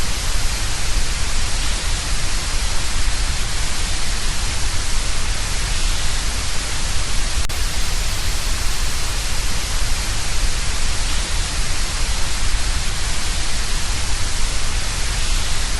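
Steady static-like hiss with a low rumble beneath it, unchanging throughout: a synthesized 'space sound' presented as the sound of Neptune's moon Neso.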